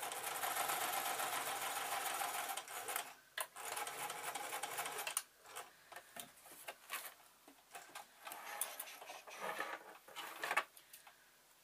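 Domestic electric sewing machine stitching across the corner of a leatherette pencil case in two runs, about three seconds, a brief pause, then about a second and a half more, before stopping. After that come quieter clicks and rustles of the work being handled, with one sharp click near the end.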